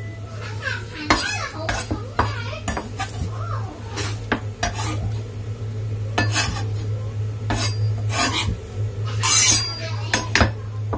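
Large kitchen knife knocking and scraping on a wooden cutting board as minced chicken is scraped off into a bowl: about ten separate knocks and scrapes at uneven intervals, over a steady low hum.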